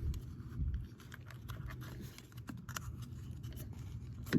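Rubber wiring-harness boot being worked by hand onto a truck door: rubbing, scraping and small clicks, with a few duller knocks at the start, just under a second in and near the end.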